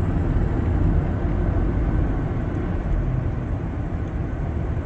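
Car in motion heard from inside the cabin: a steady low road and engine rumble.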